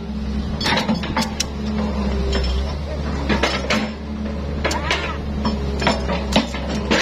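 Hyundai crawler excavator's diesel engine running steadily while the bucket digs into the soil and roots, with repeated sharp clanks and knocks from the bucket and its linkage.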